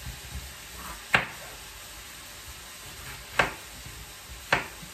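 Kitchen knife cutting through a courgette onto a wooden chopping board: three sharp cuts, about a second in, a little past three seconds and near the end. A faint steady sizzle of chicken frying in a pan runs under them.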